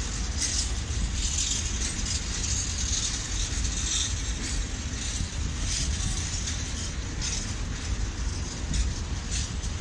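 Freight train of open coal wagons rolling past at close range: a steady rumble of wheels on rails, with irregular metallic clatter and screeching up high.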